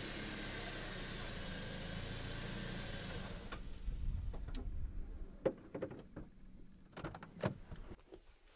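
Car running with a steady rumble and road noise, which fades out about three and a half seconds in as it comes to rest. A few scattered clicks and knocks follow.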